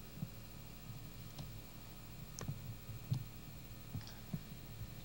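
Scattered soft clicks and light knocks: handling noise as a baby outfit on a hanger is held up and moved. A faint steady hum lies underneath.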